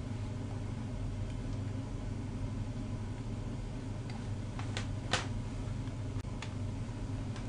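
Steady low hum of room tone, with a few faint clicks about two-thirds of the way through, the loudest just after the middle.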